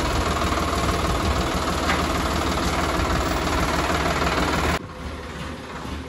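Farm tractor's diesel engine idling steadily. About five seconds in, the sound cuts off abruptly to a much quieter background.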